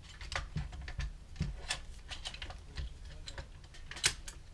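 Irregular small metallic clicks and taps of a screwdriver prodding at the screw, washer and buffer inside an airsoft M4's buffer tube, with one sharper click about four seconds in.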